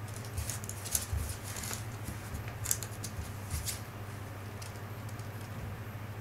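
Siberian kitten's claws scraping and clicking on a hard diatomaceous-earth bath mat as it rolls and paws at it, with a few soft thumps. The scrapes are scattered through the first four seconds, then it goes quieter, all over a steady low hum.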